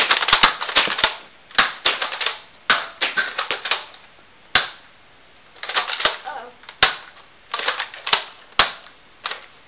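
Nerf blasters being worked and fired: a run of sharp plastic clicks and snaps in irregular clusters, at times several a second.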